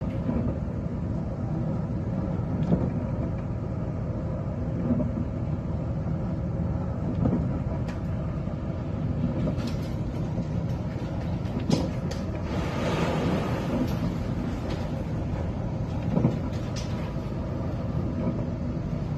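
Steady low rumble of a ship's engine running, with several heavy thumps. About two-thirds of the way through, a wave breaks over the bow and there is a loud rush of water and spray across the deck.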